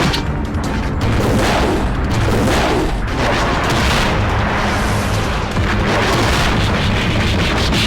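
Anime-style fight sound effects: a dense run of booming blasts and rushing swells of noise, one after another every second or so, over background music with a steady low bass.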